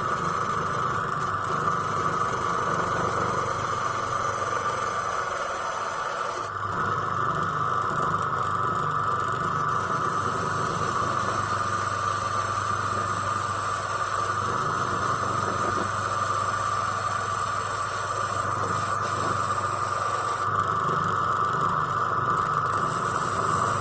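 Grinding wheel running steadily and grinding through the head of a metal pin fastener. There is a constant motor whine, and a high grinding hiss that comes and goes as the wheel bites.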